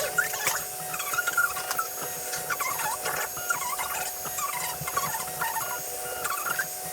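XVICO X3S 3D printer's stepper motors whining in short, quick chirps that jump up and down in pitch as the print head moves back and forth, over a steady hum.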